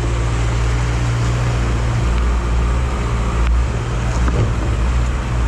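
Jetboat engine idling with a steady low hum, over the rush of a fast, shallow river.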